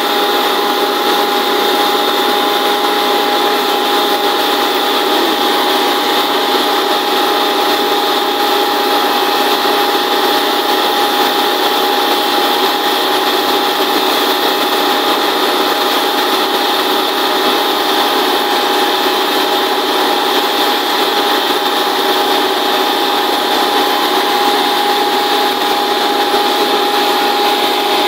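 Truck-mounted down-the-hole water well drilling rig drilling, driven by air from its compressor: a steady, loud mechanical noise with a constant whine over it.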